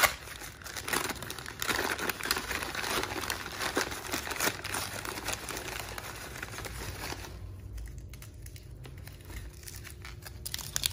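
Glossy paper store flyers used as egg packing being crumpled and pulled apart by hand: busy crinkling and tearing for about seven seconds, then quieter. Near the end, crinkling again as a foil-wrapped egg is handled.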